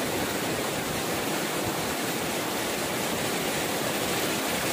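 Sea surf washing over the shallows, a steady rushing hiss with no distinct wave crashes.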